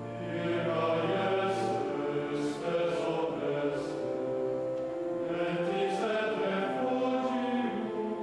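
Men's choir singing Latin plainchant at a Tridentine High Mass, long sustained notes with a few sharp sibilants, growing louder about half a second in.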